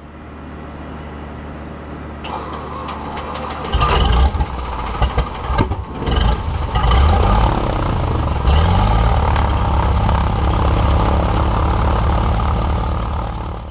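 Single-engine light aircraft's piston engine being started: the starter turns it over, the engine catches about four seconds in and runs unevenly for a few seconds, then settles into a steady idle with the propeller turning.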